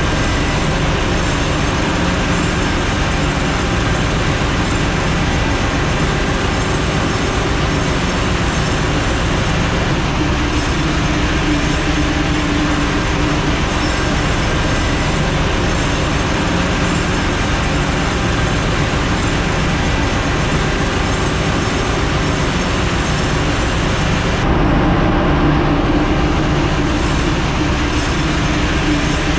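Steady, loud din of a ship's engine room: machinery running continuously with a low hum under a broad hiss. The tone changes slightly about 25 seconds in.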